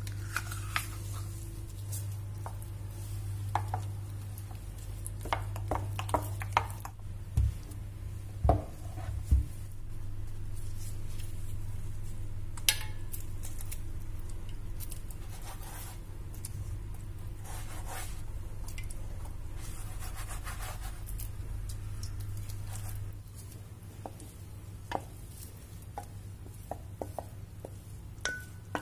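Kitchen utensil handling: a metal spoon scraping and knocking against a steel pot and plastic cups, with scattered clicks and taps and three louder knocks about a third of the way in. Under it runs a steady low hum that drops away near the end.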